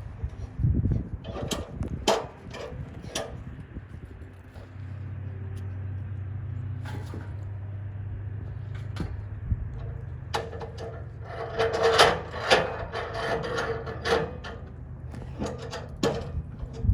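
Wooden knocks and scraping as a heavy log is worked and rolled with a hooked log tool, with a cluster of louder knocks about three quarters of the way through. A steady low engine hum runs underneath.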